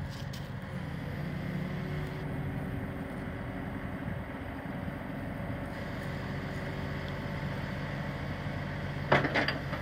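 Case IH tractor's diesel engine running steadily while its hydraulics fold the wings of an AerWay aerator up into transport position. There is a sudden loud clatter near the end.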